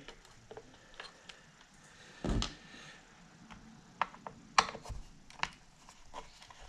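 Screwdriver work and small metal parts: scattered light clicks and ticks as the screws holding a Technics SL-1200 MK2's main circuit board are undone and handled. There is a duller knock about two seconds in and a few sharper clicks later on.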